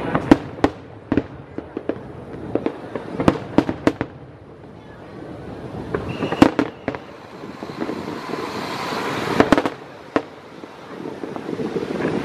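Aerial fireworks shells bursting in the sky: sharp bangs in clusters, with a rising hiss about two-thirds of the way through that ends in another cluster of bangs. Wind on the microphone builds near the end.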